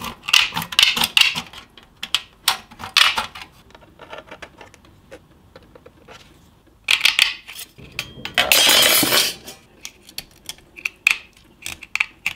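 Perforated steel sheet from a box grater clinking and clattering as it is handled. About two-thirds of the way through there is a harsh noise about a second long, then a run of sharp metallic snips as tin snips cut small pieces from the steel.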